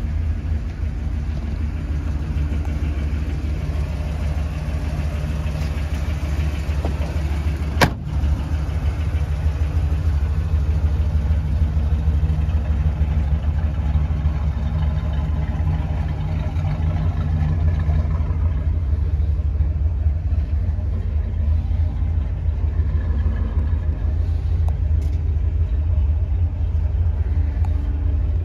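1964 Pontiac GTO's 389 V8 idling steadily. A single sharp knock about eight seconds in.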